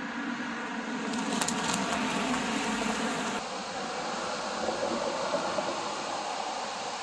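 A low rumbling noise gives way, about three and a half seconds in, to the steady rushing of a waterfall pouring into a gorge below.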